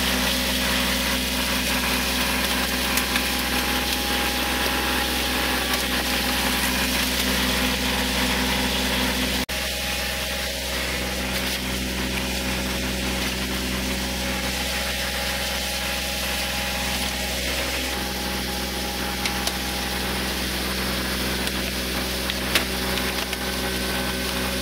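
Kubota tractor engine idling steadily, with a few brief cracks as the tyre presses down on plastic RC cars.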